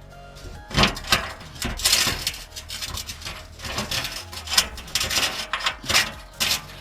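Irregular scraping, rubbing and clicking of a steel skid plate and its bolts being worked into place against the underside of a car.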